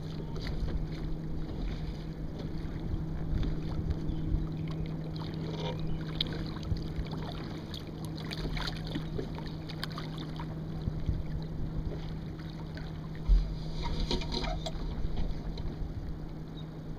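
Small sailboat under way: water rushing and lapping along a Sunfish's hull, with wind buffeting the microphone. A faint steady hum runs underneath, and one sharp low wind thump on the microphone comes about thirteen seconds in.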